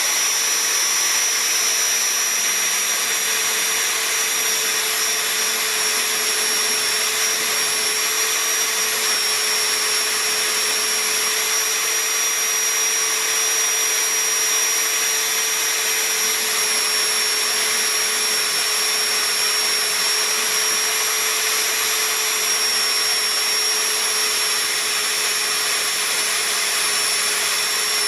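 Electric drill, rigged as an improvised bench polisher, running at full speed with a coarse wire brush wheel on its chuck: a steady whine over a hiss that holds its pitch.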